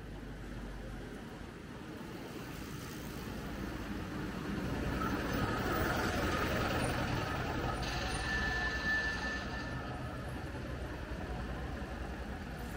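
A motor vehicle passing on a city street, growing louder to a peak a few seconds in and then fading, with a brief high tone near its loudest point.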